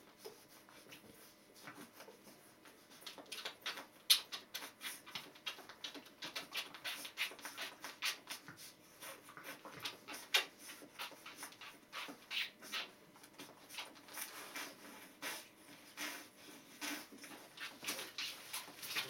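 Two-week-old Border Collie puppies suckling with their mother, who licks at them: a dense run of irregular wet clicks and smacks, several a second, starting a few seconds in.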